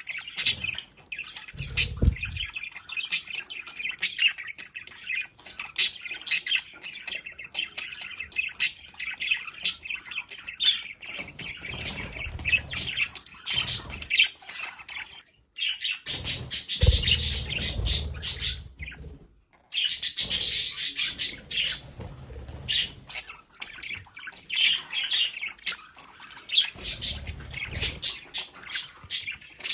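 A group of pet budgerigars chattering: a dense run of short, rapid chirps and squawks, with louder, busier stretches a little past the middle.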